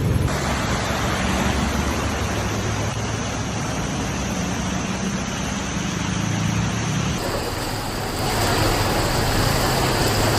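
A motor vehicle's engine hum under a dense, steady rushing noise, like road or water noise. The sound changes abruptly about seven and again about eight seconds in.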